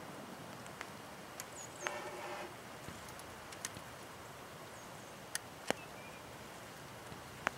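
Quiet open-air range background after a 12-gauge muzzleloading shotgun shot: the last of the shot's echo dies away in the first moment. Then come scattered light clicks and crunches of footsteps on gravel and of the gun being handled, and a few faint high bird chirps.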